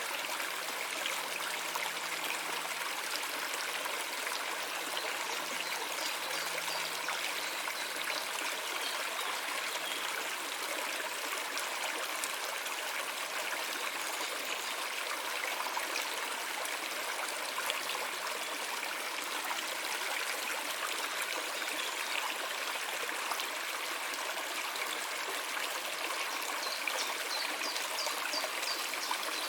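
Water running steadily, as a stream flowing.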